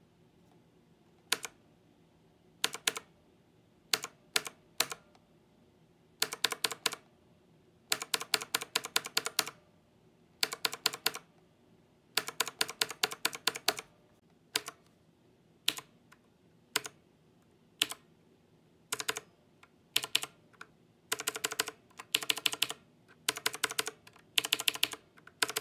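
Mechanical keyboard being typed on: a few single keystrokes at first, then runs of fast typing alternating with single key presses, getting busier toward the end.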